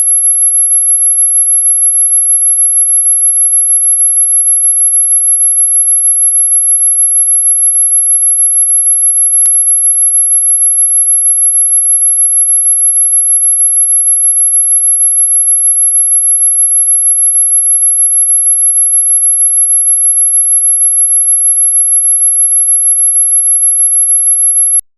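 High-pitched dog whistle sound effect: two steady, piercing pure tones held unchanged, with a slight fast flutter in loudness. A faint click comes about nine seconds in, and the tone cuts off abruptly at the end.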